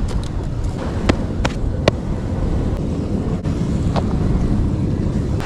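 Wood campfire crackling, with a few sharp pops between about one and two seconds in and another near four seconds, over a steady rumble of wind on the microphone.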